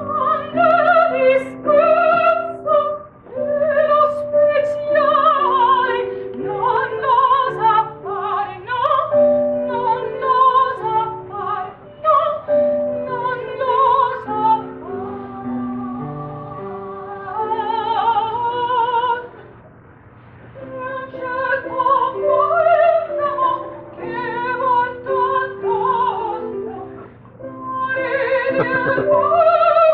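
Background music: a woman singing in a classical, operatic style with vibrato over piano accompaniment.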